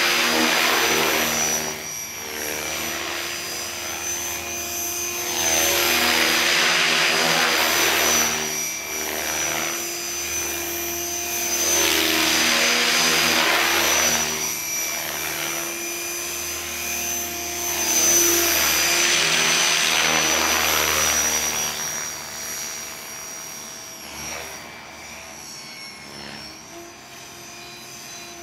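Gaui Hurricane 550 electric RC helicopter flying hard: a steady high whine from the motor and drivetrain under a rushing of rotor blades that swells loud four times, then fades as the model flies farther off near the end.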